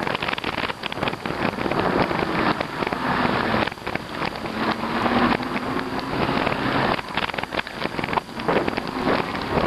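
Wind buffeting the microphone of a moving e-bike, a steady rough rush with constant crackling road and tyre noise.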